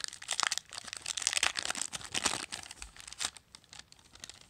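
Foil-lined wrapper of a 1994 Upper Deck basketball card pack crinkling as it is torn open by hand. The crackling is dense for about three seconds, then quiets near the end.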